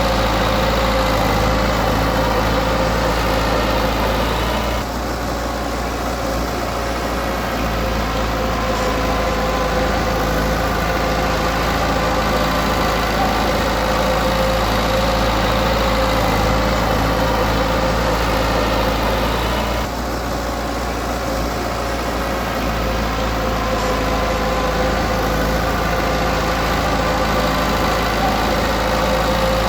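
Diesel engine of heavy earthmoving equipment running steadily, easing off briefly twice, about five seconds in and again around twenty seconds.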